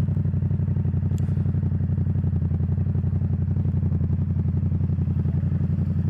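Motorcycle engine running steadily with an even beat of exhaust pulses, its exhaust's dB killer removed.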